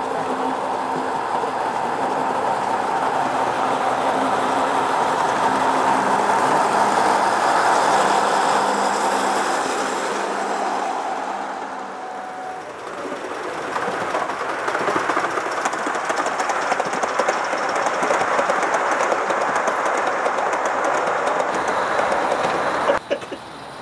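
Gauge One model train running along the track: a steady hum with a couple of held low tones for about the first half, then, after a short dip, the wheels clicking rapidly over the rail joints. The sound cuts off abruptly near the end.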